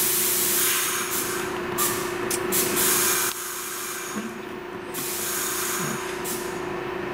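A Bombardier R62A subway car standing still, its air equipment hissing over a steady hum. The hiss drops away about three seconds in, then returns briefly near the end.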